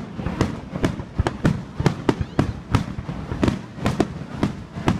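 Aerial fireworks bursting in a rapid barrage, about three sharp bangs a second, each with a low rumble.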